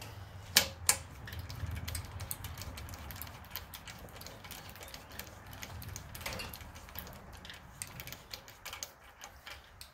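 Spark plug socket and extension clicking on a new spark plug as it is threaded into the cylinder head of a Honda GX390 engine: two sharp metal clicks about half a second in, then light irregular ticking.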